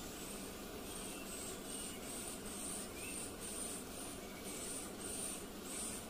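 Forest ambience: a steady hiss with short high-pitched chirps repeating irregularly about twice a second, and a few faint rising chirps.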